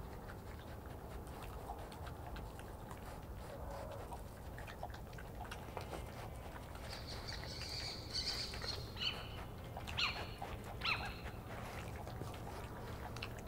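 Owl calls that the uploader takes for a juvenile little owl's, starting about halfway in: first a drawn-out high call, then three short sharp calls about a second apart. Under them, faint scattered clicking from badgers eating.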